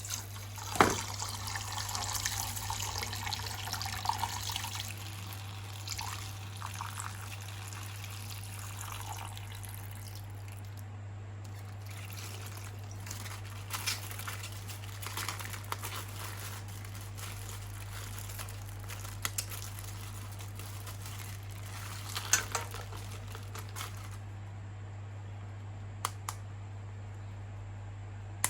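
Liquid pouring and trickling for the first few seconds, then scattered clicks and crackles of small plastic toys being handled in it, over a steady low electrical hum.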